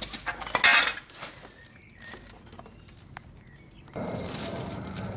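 Metal clinking and scraping as the rear axle of a KTM Duke 390 is pulled out through the swingarm and wheel hub. The sound is loudest in the first second, with scattered single clicks after it. About four seconds in, a steady rustling noise begins.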